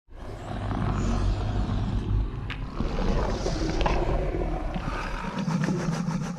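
Indominus Rex creature sound effect: a long, low rumbling growl lasting about six and a half seconds, with a sharp click about two and a half seconds in and a fast rattle near the end.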